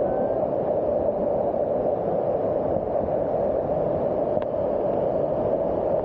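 Small waterfall rushing steadily over rock, with one faint click about four seconds in.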